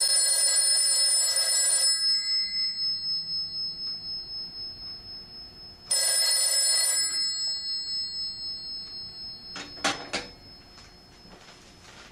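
Gray Mfg 150G payphone's bell ringer ringing twice: a ring of about two seconds, with the gongs ringing on after it, then a shorter ring of about a second about six seconds in. A few sharp clicks and knocks near ten seconds.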